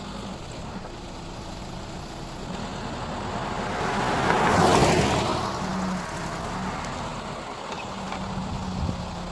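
An engine running steadily, with a rushing noise that swells to a peak about halfway through and then fades.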